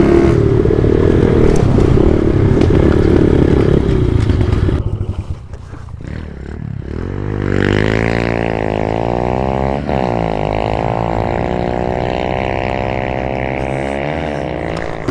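Dirt bike engine running under throttle, dropping away about five seconds in. From about seven seconds in an engine runs steadily, its pitch sweeping up and back down around ten seconds in.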